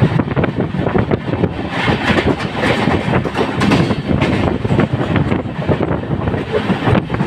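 Express train running on the track, heard from aboard an LHB passenger coach: a steady rumble of wheels on rail with frequent irregular clicks and clatter.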